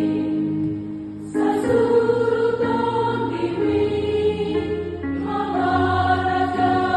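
Women's church choir singing a Batak hymn in sustained held notes. Near the start a phrase ends with a short dip, and a new phrase begins a little over a second in.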